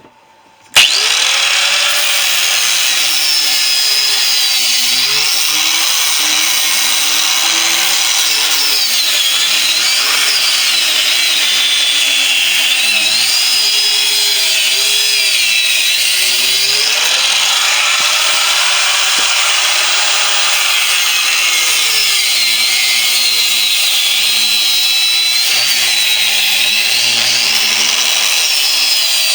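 Angle grinder switched on about a second in and cutting through the steel shell of a refrigerator compressor, running continuously with a loud hiss and a motor pitch that dips and recovers as it bites under load.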